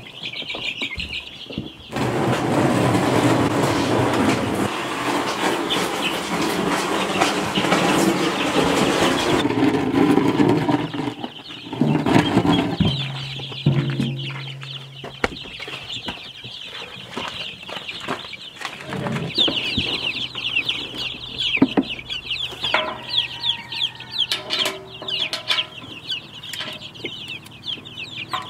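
A tubful of young meat chicks and ducklings peeping, many high rapid peeps at once. The peeping is loudest near the start and again through the second half. About two seconds in, a long stretch of loud rustling and clattering from the tub being handled and carried partly drowns the peeping, and later there are a few sharp clicks.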